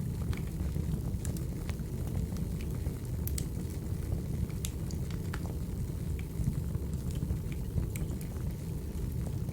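Wood fire burning: a steady low rush of flames with scattered sharp crackles and pops.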